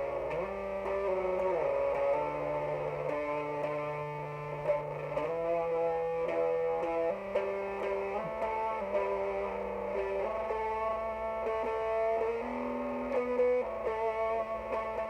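Electric guitar, a Jackson X Series played through an Orange Mini Crush 3-watt amp with a Boss ODB-3 as a boost, playing a slow doom metal line of held notes that change about once a second, with a few slides near the start.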